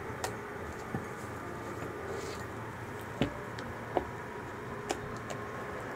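Wire whisk stirring meringue into egg-yolk batter in a glass mixing bowl, with a handful of separate light clicks as the whisk strikes the glass. The loudest click comes about three seconds in.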